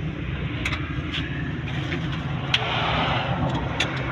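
A motor vehicle engine idling with a steady low rumble, with scattered light clicks and a short burst of hiss-like noise about two and a half seconds in.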